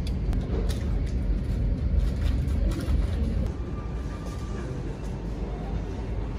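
Indoor room noise: a steady low rumble with a few faint clicks. It drops slightly about three and a half seconds in.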